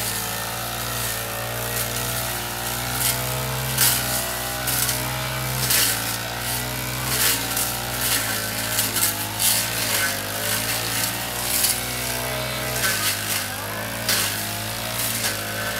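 Petrol brush cutter running while swung through tall grass and weeds. Its engine note rises and falls, and there are repeated short rasping sounds as the cutting head hits the vegetation.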